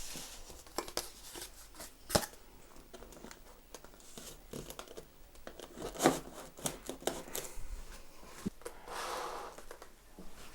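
Handling noise of foam and plastic model-plane parts and packaging: scattered clicks and knocks, two sharper ones about two and six seconds in, and a brief rustle near the end.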